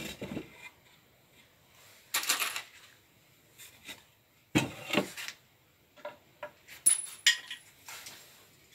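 A wooden birdhouse box being handled and set down on a workbench: a few separate knocks and scrapes of wood on the bench, with a cluster of sharp clicks near the end.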